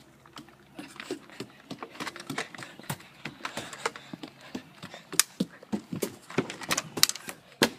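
Footsteps climbing steps up to a deck: a string of irregular knocks and taps, with a few sharper knocks near the end.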